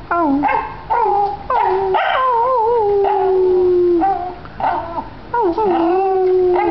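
Small dog 'talking': a few short yips and whines, then a long wavering howl that slides down in pitch for a couple of seconds, and another drawn-out howl near the end.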